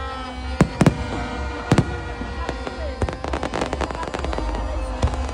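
Aerial fireworks: a few sharp shell bursts in the first two seconds, a dense rattle of crackling stars about three seconds in, and another sharp bang near the end.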